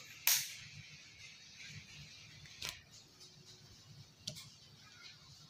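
Handling noise from multimeter test probes being set on the TV's circuit board and metal chassis: a short rustling hiss at the start, then two sharp clicks, about two and a half and about four seconds in, over faint room noise.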